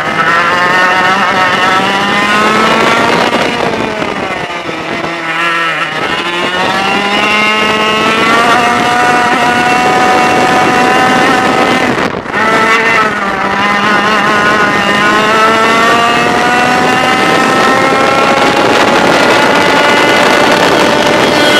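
Racing kart's 100cc two-stroke engine heard onboard, its pitch climbing as it accelerates and falling back when the throttle is lifted for corners, most sharply about twelve seconds in, then rising steadily again to near the end.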